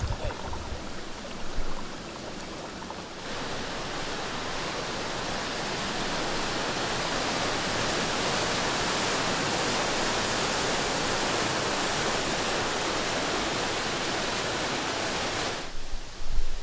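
A shallow mountain stream running over rocks. From about three seconds in comes the louder, steady rush of whitewater pouring between boulders, which cuts off shortly before the end.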